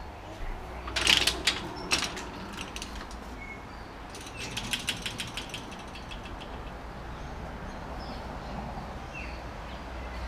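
A metal security screen door's handle and latch clicking and knocking as the door is opened, then a quick run of rattling metallic clicks about four seconds in.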